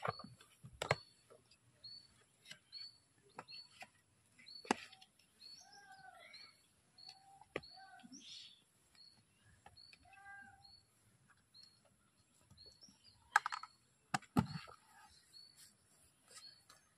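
Birds calling outdoors: a short high chirp repeats about twice a second throughout, and lower, arching calls come several times in the middle. A few sharp knocks stand out, the loudest about two-thirds of the way in.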